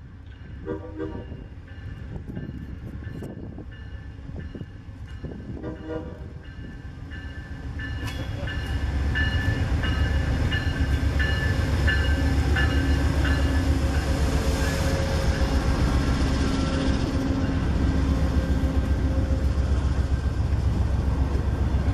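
Amtrak GE Genesis P42DC diesel locomotive approaching and passing, its engine and wheels growing loud about eight seconds in. Passenger cars then roll steadily by with their wheels clicking over the rail joints.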